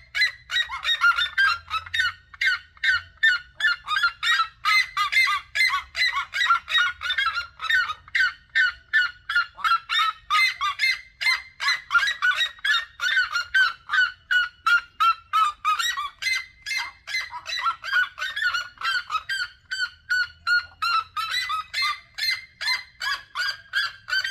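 Red-legged seriemas calling: a long, unbroken run of short repeated call notes, about three a second.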